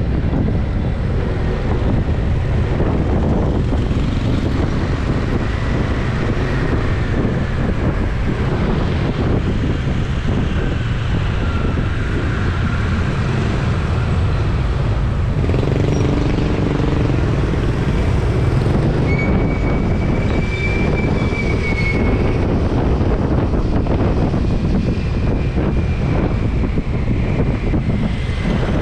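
Road and traffic noise from a moving vehicle, with heavy wind buffeting on the microphone: a steady low rumble. Faint higher tones pass by now and then.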